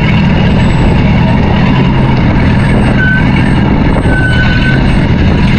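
Fishing boat's engine running loud and steady, with the drone of its low hum unchanging while the scoop net of fish is hauled aboard. Two short high squeaks come through about three and four seconds in, the second one longer.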